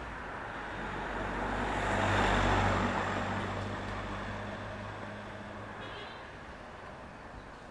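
A motor vehicle driving past: engine hum and tyre noise swell to a peak about two seconds in, then fade away.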